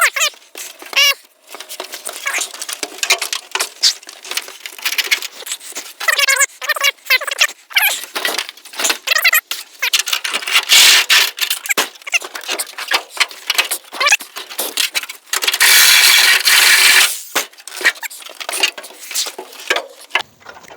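Power tool cutting through a car body's sheet-steel roof, running in ragged stop-start bursts with squealing metal. A louder steady stretch of cutting comes about three quarters of the way through.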